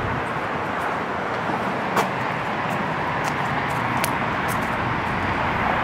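Steady hum of city traffic and urban background noise, with a couple of sharp clicks about two and four seconds in.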